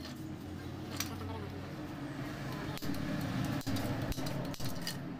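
A handful of light clicks and clinks from small metal foot-pump parts being handled over a steady low hum.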